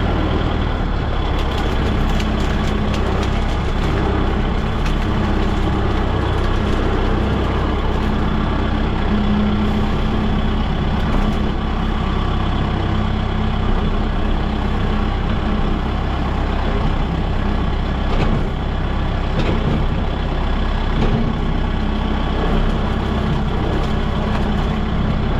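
Heavy engine of farm machinery running steadily at an even speed, a continuous low drone.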